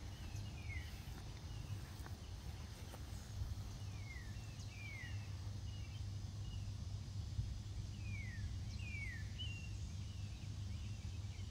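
A songbird singing outdoors: short clear whistled notes that slide down in pitch, often in pairs, repeated every few seconds. A steady low rumble runs underneath.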